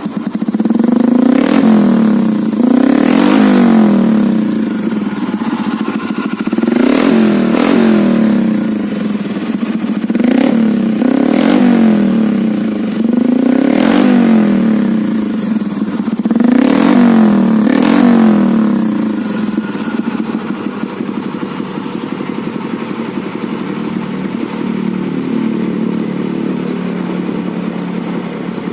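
Honda Karisma 125's single-cylinder four-stroke engine, fitted with an aftermarket SND exhaust, revved in short throttle blips, mostly in pairs, about nine times. It then settles back to a steady idle for roughly the last nine seconds.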